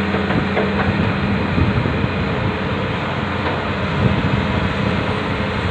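Hitachi hydraulic crawler excavator's diesel engine working under load as the machine claws itself through deep mud with its bucket, with a steady run of knocks and clatter from the tracks and boom.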